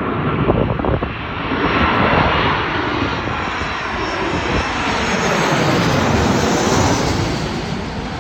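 Boeing 737-800 jet airliner on landing approach, its CFM56 turbofan engines running as it passes close by; the noise swells over the first couple of seconds and then holds loud.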